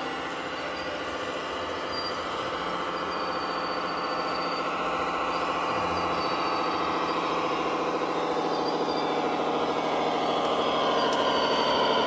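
Radio-controlled model vehicle running: a steady whir of motor and gears that slowly grows louder.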